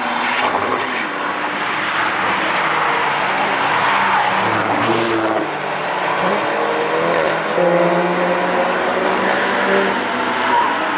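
Several road cars passing one after another through a racetrack corner. Their engines overlap and rise and fall in pitch as they go by, over a steady rush of tyre and road noise.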